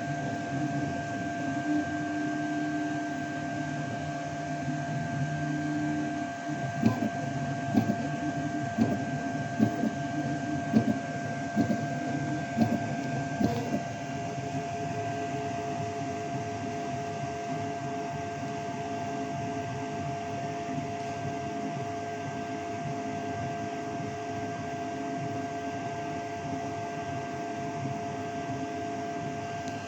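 Creality K1C 3D printer running: a steady fan whine over a shifting low motor hum, with a run of sharp ticks between about 7 and 13 seconds in.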